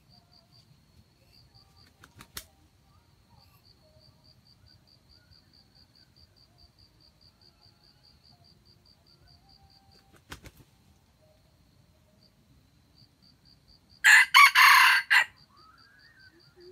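Red junglefowl rooster crowing once near the end, a short crow of just over a second. Under it, an insect chirps steadily at about four times a second.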